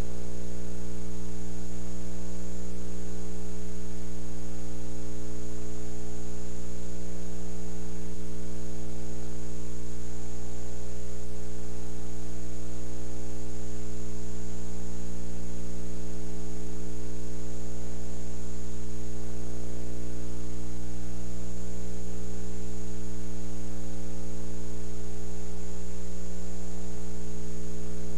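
Steady electrical mains hum with a stack of overtones, a thin high whine and a faint hiss, unchanging throughout, with no sound of the game itself.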